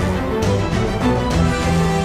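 Background music: a song track with held notes, no other sound standing out.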